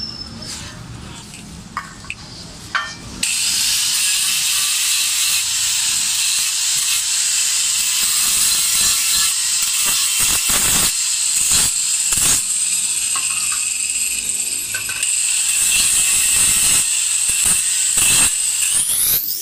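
Angle grinder running with a steady, high-pitched whine, grinding the edge of a brass sheet channel held against its disc. It starts about three seconds in after a few knocks of the metal being handled, and its pitch rises near the end.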